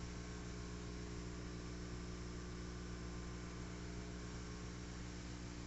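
Faint, steady hum with an even hiss from running aquarium equipment: the tank's pump and air-bubble curtain.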